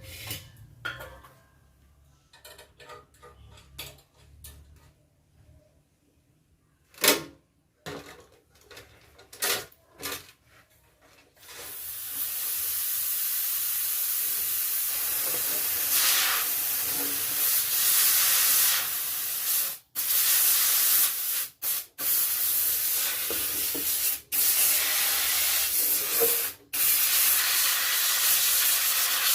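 Pressurised gas hissing loudly and steadily, starting about twelve seconds in after scattered clicks and knocks. It cuts off sharply and resumes several times.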